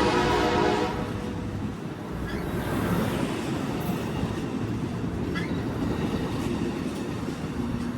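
Train horn sounding a chord that cuts off about a second in, followed by the steady rumble and wheel noise of a train rolling past on the rails, with faint wheel squeal.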